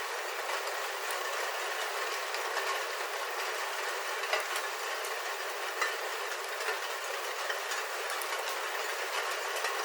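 Rain falling on a roof, heard from inside: a steady, dense patter with a few sharper individual drop ticks, one about four seconds in and one near six seconds.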